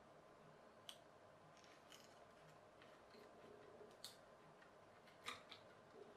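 Near silence with a few faint, sharp clicks, the strongest about five seconds in. These are the small foam parts of a rubber-band plane kit being handled and pushed onto its wooden stick.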